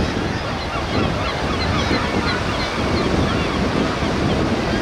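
Wind buffeting the microphone over the wash of choppy sea waves, with many faint, short high-pitched calls scattered through.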